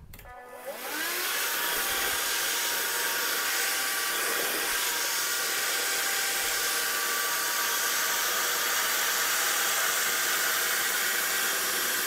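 Silvercrest cordless wet-and-dry handheld vacuum cleaner switched on, its motor whining up to speed within about a second, then running steadily with a rushing hiss as it sucks up a puddle of spilt water.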